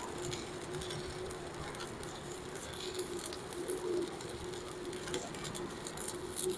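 Stick-welding arc from a Protech MK250 inverter welder burning a 4 mm electrode at 200 A: a steady crackling sizzle with spatter, over a constant low tone.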